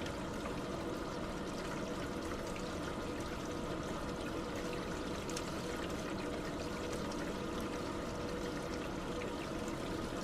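Liquid pouring in a steady, unbroken stream.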